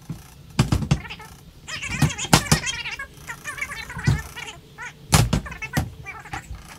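Fast-forwarded time-lapse audio of air-rifle cleaning: sped-up voices and handling noises turned into high-pitched, chirpy chatter. Sharp knocks come four times, the loudest about five seconds in.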